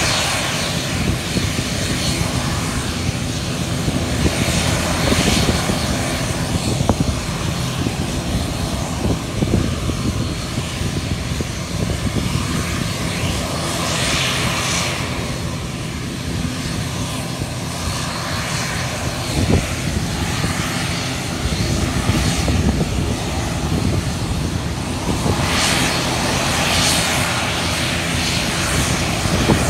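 ATR 72-600's twin turboprop engines running steadily on the runway at low power, a continuous low propeller drone. Brief rushes of hiss rise over it about halfway through and again near the end.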